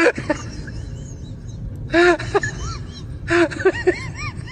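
Small dog crying out in short, high yelps that rise and fall in pitch, in clusters near the start, about two seconds in and around three and a half seconds in: fearful cries while it is held by a vet nurse.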